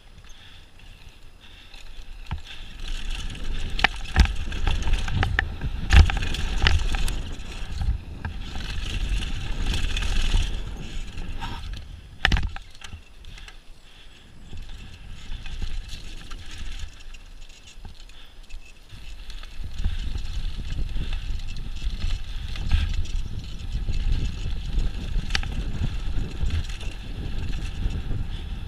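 Mountain bike ridden fast down a dirt trail: tyres rumbling over gravel and the bike rattling, with a steady low rush of wind on the microphone and a few sharp knocks over bumps.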